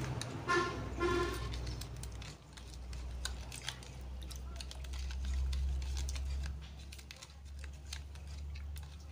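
Metal spoon stirring a thin marinade in a small plastic bowl, a busy run of light clicks and scrapes against the bowl. Two short horn toots sound about half a second and a second in.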